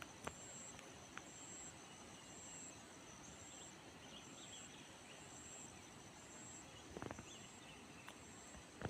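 Faint insect calling in the jungle: a short, high chirp repeating about once a second over quiet background hiss, with a brief soft rustle about seven seconds in.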